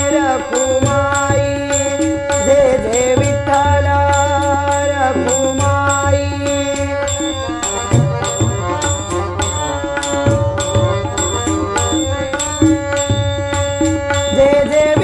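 Devotional bhajan music: a harmonium holds steady chords and melody while small brass hand cymbals (taal) and a hand drum keep a fast, even beat. A male voice sings over it in places.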